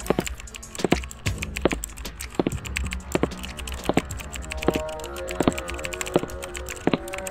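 Rapid, irregular clicking like keyboard typing, over a low steady hum, with a few faint held musical tones joining about two-thirds of the way in.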